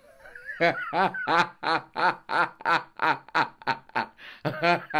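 Rhythmic laughter: a voice chuckling in short, evenly spaced 'ha' pulses, about three a second, starting about half a second in.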